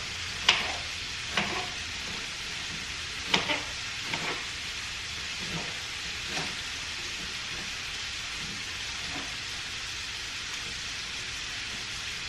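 Steak frying in butter in a pan, a steady sizzle, with sharp knife knocks on a cutting board as a yellow onion is cut, several in the first half and a few fainter ones later.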